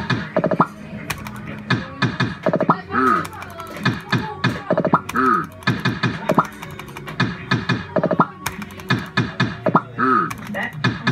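Maygay Subbuteo fruit machine playing spin after spin: reels clicking and clunking to a stop amid the machine's electronic sound effects, the pattern repeating about every two seconds.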